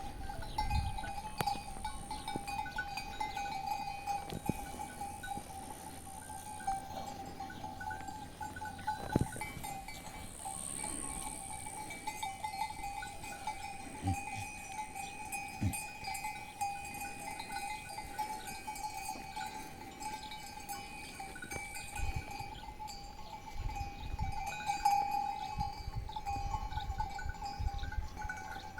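Livestock bells on a flock clinking and jangling continuously, with a few scattered knocks.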